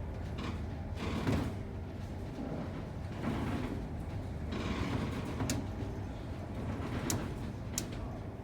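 Ferry under way: a steady low drone from the ship, with creaks and swelling rattles coming and going every second or two, and a few sharp clicks in the second half.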